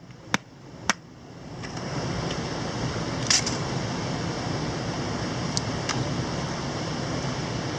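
Firewood being split by batoning: sharp wooden knocks about twice a second that stop about a second in. A steady rushing noise then rises and holds.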